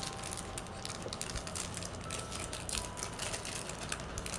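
Hands opening a small toy blind pack, its packaging making an irregular run of light crinkles and clicks.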